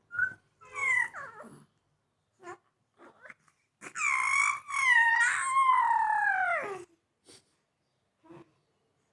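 Baby vocalising: a few short high-pitched squeals in the first two seconds, then one long wavering cry of about three seconds that drops in pitch at its end.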